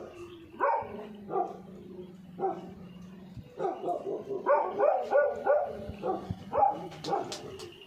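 Dogs barking: a few separate short barks in the first half, then a fast run of barks through the second half, over a steady low hum.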